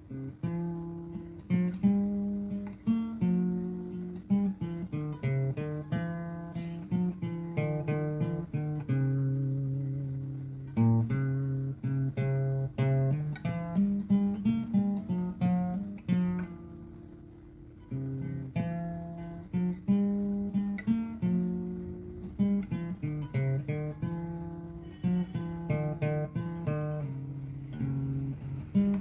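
Background music: an acoustic guitar tune of plucked notes and chords.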